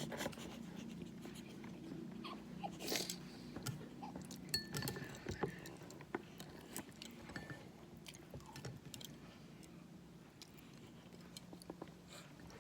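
A person chewing and biting crunchy food close to the microphone, with scattered sharp crunches and clicks, over a low steady hum.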